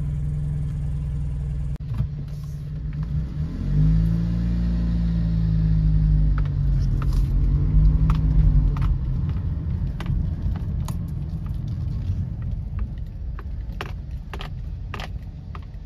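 Fiat 500 car driving with its roof open: low engine rumble and road noise, the engine tones rising as it accelerates about four seconds in, then easing off. A few sharp knocks later on.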